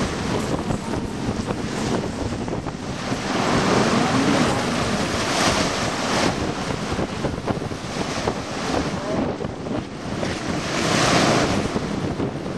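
Wind buffeting the microphone: a loud, even rushing noise that swells and fades, with stronger gusts about a third of the way in and again near the end.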